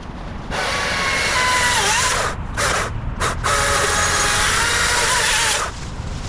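Electric chainsaw cutting through the low stems of an overgrown shrub. Its whine runs in three spells with two short breaks and dips in pitch once as the chain bites.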